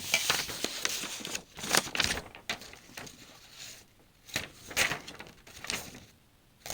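Irregular rustling and several light knocks of things being handled on a table.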